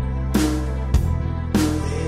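Music: a song with a steady drum beat, about one hit every 0.6 seconds, over sustained bass notes.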